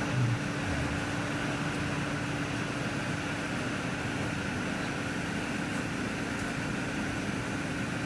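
A steady mechanical hum: a constant low tone over an even hiss, unchanging throughout.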